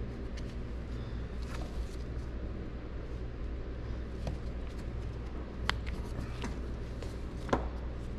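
Light clicks and taps of hand tools and power antenna parts being handled at a workbench, with two sharper clicks, one just past halfway and one near the end, over a steady low background hum.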